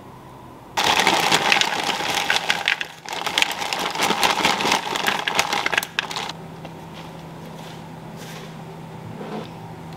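Frozen french fries poured from a plastic bag onto a metal sheet pan: a dense clatter of fries hitting the tray, mixed with crinkling of the bag, lasting about five seconds with a short break partway through. Afterwards a low steady hum is left.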